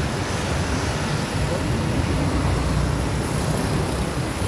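Busy city street traffic: cars and motor scooters passing close by, a steady low rumble of engines and tyres.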